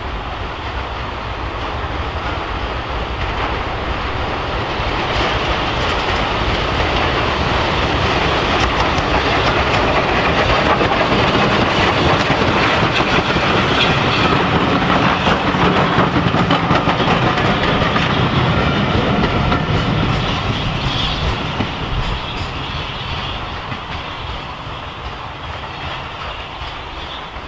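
Hunslet 0-6-0 tank steam locomotive No. 3781 passing with its coaches: chuffing exhaust and the clickety-clack of wheels over rail joints, growing louder as the train nears, loudest about halfway through as it goes by, then fading.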